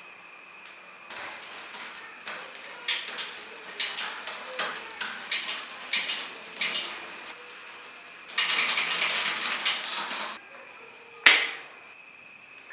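Bicycle rear drivetrain being worked: irregular ratcheting mechanical clicks for several seconds, then about two seconds of steady freehub buzz as the rear cassette spins. A single sharp snap follows near the end.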